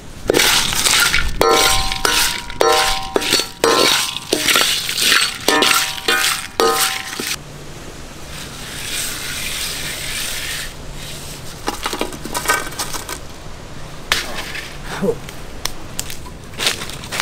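Iron kadai clinking and ringing as it is handled and shaken over a wood fire with whole spices dry-roasting in it. A quick series of sharp metallic clinks fills the first seven seconds or so, then comes a steadier hiss, with a few more clinks later on.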